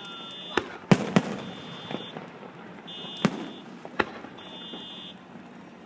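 Aerial fireworks going off: about six sharp bangs at uneven intervals, the loudest two close together about a second in. An electronic beeping sounds throughout, one beep about every second and a half.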